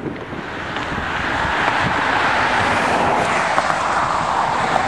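A vehicle passing, its rushing noise swelling over the first two seconds and then holding steady, with wind buffeting the microphone.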